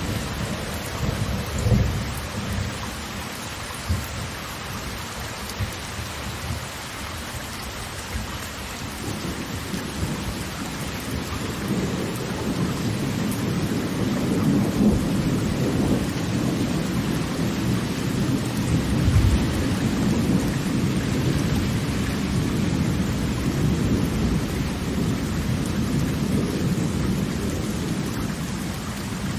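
Roar of a large waterfall: a steady rushing noise over a deep rumble that swells from about ten seconds in.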